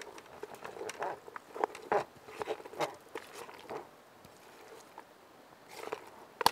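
A spoon stirring tuna pasta salad with mayonnaise in an old metal billy can: irregular scraping and squishing sounds for about four seconds, a quieter pause, then a brief rush of stirring and a sharp click near the end.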